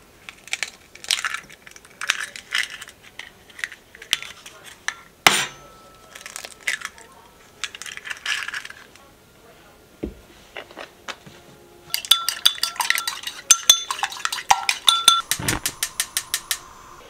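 Eggs tapped and cracked against the rim of a ceramic bowl: sharp taps and shell cracks, a few at a time. In the last few seconds a gas range's igniter clicks fast and evenly as a burner is lit.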